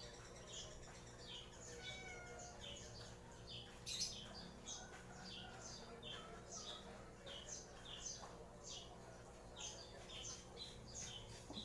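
Faint, evenly repeated short bird chirps, about two a second, with a few soft warbling murmurs and a single sharp click about four seconds in.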